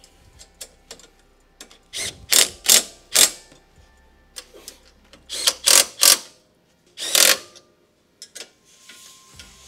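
Hand ratchet wrench tightening a go-kart's rear shock-absorber mounting bolts: short bursts of ratchet clicking, four in quick succession about two seconds in, three more a few seconds later and one near the end.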